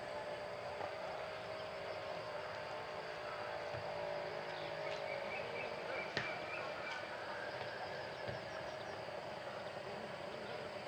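Quiet rural evening outdoor ambience: a steady hiss with a faint hum and a sharp click about six seconds in.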